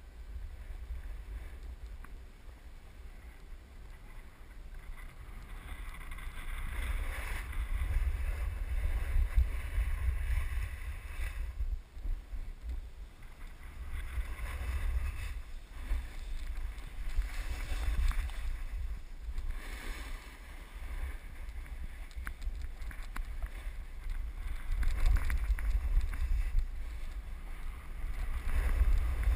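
Wind buffeting a helmet camera's microphone as a snowboard rides down a groomed slope. The board's edge scrapes over the snow, swelling and fading every few seconds with each turn.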